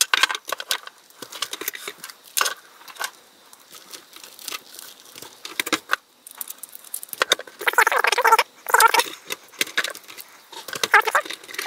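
Ethernet cables and their plastic-wrapped coils being handled: rustling and crinkling with scattered small clicks and clacks as plugs are pushed into the recorder's ports and cameras are moved on the desk. The handling gets busier about two thirds of the way in.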